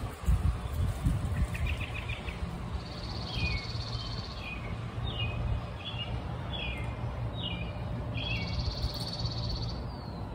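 Wild birds singing: a string of short falling chirps, about one a second, and a high buzzy trill that comes twice. A low rumble runs underneath.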